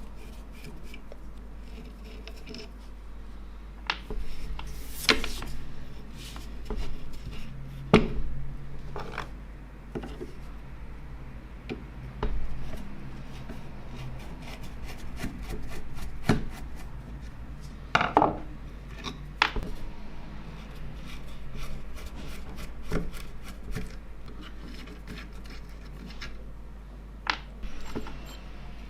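Hand-work on a vintage hand drill: scattered clicks and knocks, with stretches of rubbing between them.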